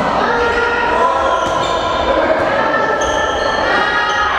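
A volleyball being struck by hand a few times in play, sharp slaps that ring in a large echoing gym, with players' voices calling over them.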